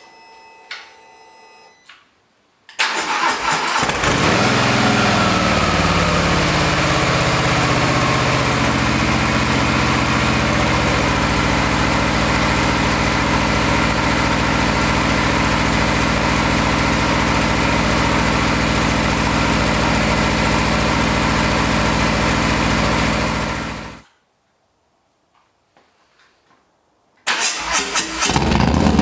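Harley-Davidson Low Rider ST's Milwaukee-Eight 117 V-twin cranked and fired up about three seconds in, then idling steadily. It stops abruptly after about twenty seconds and is running again a few seconds later, near the end.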